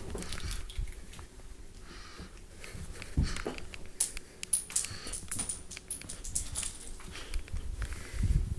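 Handling noise on a handheld camera's microphone: rustling with scattered clicks and soft knocks, and a couple of low thumps near the end.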